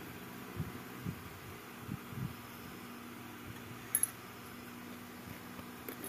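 Soft handling noise: a few dull low thumps and a short sharp click about four seconds in, over a steady low background hum.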